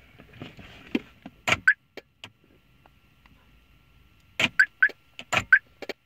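Automotive relays clicking and a 5-wire door lock actuator snapping as the lock circuit is cycled: two bursts of sharp clicks, about a second in and again near the end, with a few short high chirps among them.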